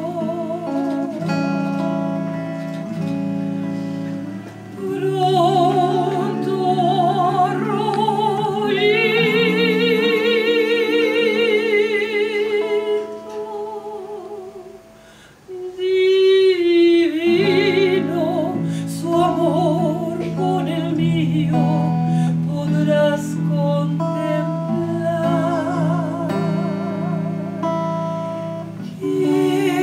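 A woman singing a slow song in a trained voice with strong vibrato, accompanied by chords on a hollow-body archtop electric guitar. She holds one long note in the middle, and the sound drops briefly just after it before the song resumes.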